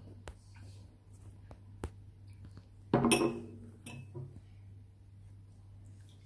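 Glass tumblers of coloured water being handled and shaken on a tabletop, giving a few sharp clicks and knocks of glass on the table. A short burst of voice about halfway through is the loudest sound, over a low steady hum.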